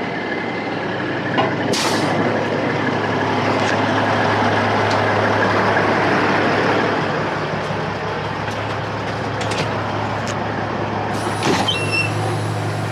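Compressed air hissing from a semi truck's air-ride suspension bags as they are aired up, over the diesel engine idling. The hiss swells in the middle and then eases. There is a sharp knock about two seconds in.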